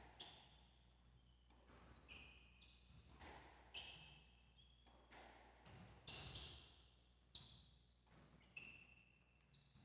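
Squash rally: the ball struck by rackets and hitting the walls with sharp knocks, about five strong ones, mixed with short high squeaks of court shoes on the hardwood floor.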